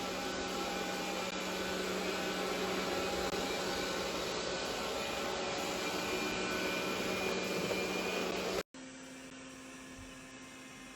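Robot vacuum cleaner running: a steady suction motor noise with a whine. It cuts off abruptly near the end, leaving a much quieter steady hum.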